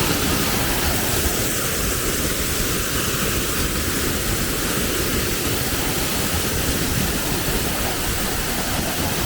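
Waterfall's falling water rushing as a loud, steady noise.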